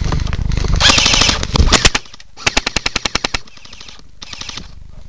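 Airsoft gun firing on full auto: a short burst of a few shots about one and a half seconds in, then a burst of about ten shots at roughly ten a second near the middle.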